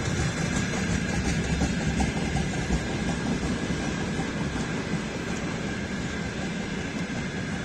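Freight train of rail tank wagons rolling past: a steady noise of steel wheels on the rails, with a thin high whine running through it. It eases off slightly in the second half.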